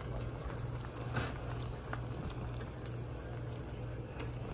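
Egg rolls shallow-frying in hot oil in a skillet, browned to a deep golden colour: a steady sizzle and bubbling with a few small pops, over a low steady hum.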